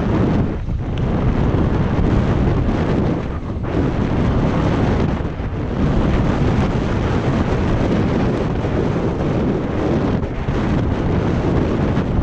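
Wind buffeting an action-camera microphone at speed, over the rumble and rattle of a Santa Cruz Nomad 4 mountain bike's tyres and frame on a dirt trail descent. The noise is loud and continuous, with a few short lulls.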